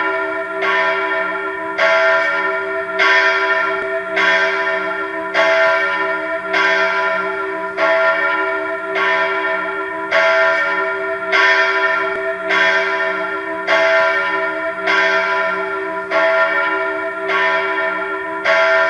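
Church bells ringing in a steady, even rhythm, about one strike a second, each stroke ringing on into the next over a continuous hum.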